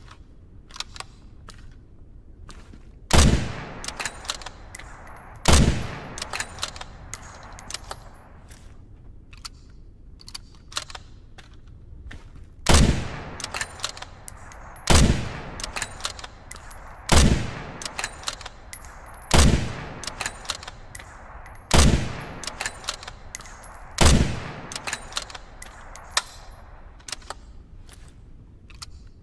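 Winchester Model 70 bolt-action rifle firing eight shots, each with a reverberating tail: two shots, a pause of about seven seconds, then six more roughly two seconds apart. Light metallic clicks of the bolt being worked come between the shots.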